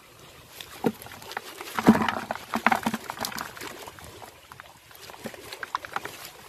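Small fish, snakeskin gouramis and barbs, shaken out of a woven bamboo fish trap, dropping and flapping in a plastic bucket while the trap is knocked against it. An irregular string of wet slaps and knocks, loudest about two seconds in.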